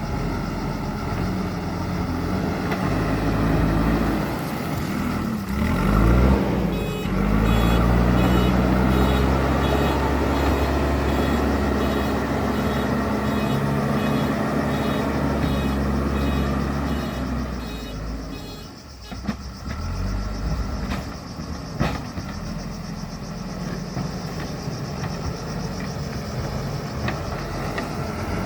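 JCB 3DX Super backhoe loader's diesel engine working, its revs climbing sharply about a fifth of the way in and holding high while the reversing alarm beeps steadily, about two beeps a second, for around ten seconds. The engine then drops back to a lower, even run.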